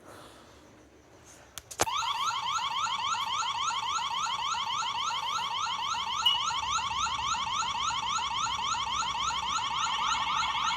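Wyze security system siren set off from its app, starting about two seconds in after a couple of clicks: an electronic alarm of rapidly repeating rising sweeps, about four a second.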